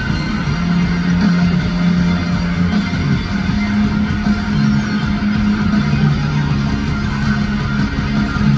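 Pop song playing from a concert sound system during a sound check: guitars and a bass line moving through held notes, with no singing picked up.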